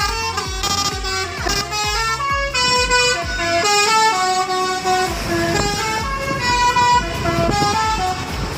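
Palala bus's telolet horn, a multi-tone horn playing a melody that steps to a new pitch several times a second, over the low running of the bus engine.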